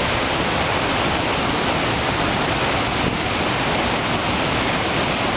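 Waterfall: a steady, loud rush of falling water, with no let-up.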